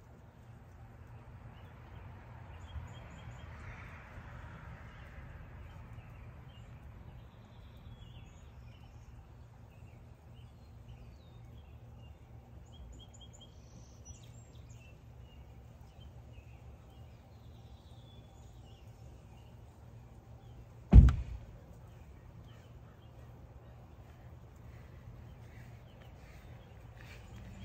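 Outdoor ambience with a steady low hum and faint, scattered bird chirps. A single loud, sharp thump about three-quarters of the way through.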